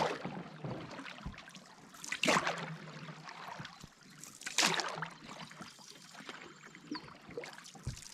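Canoe paddle strokes: four swishing splashes of the paddle pulling through the water, about one every two seconds, over the water running and trickling along the hull.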